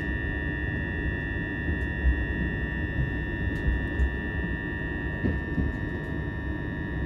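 Steady high-pitched buzzing tone inside a c2c train carriage, over the low rumble of the train running. The uploader suspects an open microphone channel on the announcement system or a clear fault.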